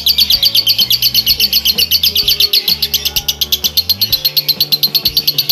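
Female Fischer's lovebird chattering in one long unbroken run of fast, high chirps, about nine or ten a second.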